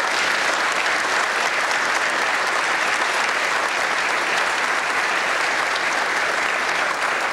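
A large audience applauding, with steady, sustained clapping.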